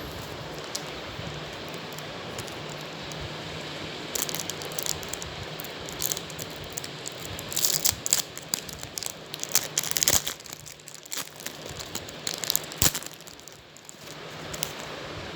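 A football card pack's wrapper crinkling and crackling in irregular bursts as it is torn open and handled, loudest a few seconds into the middle, over a steady background hiss.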